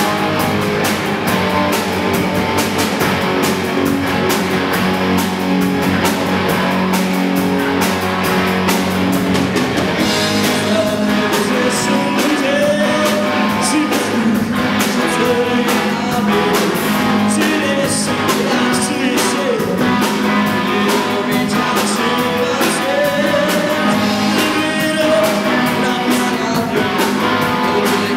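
Rock song played by a band with guitars; a sung vocal line comes in about ten seconds in.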